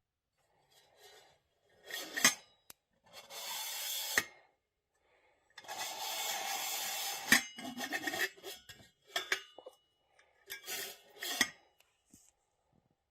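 Coffee-making handling sounds from the French press and its parts: five or six short bouts of rubbing and scraping, with a few sharp clicks, between stretches of silence.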